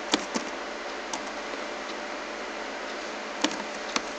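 Computer keyboard keystrokes: a few quick clicks at the start and two more near the end, over a steady hiss.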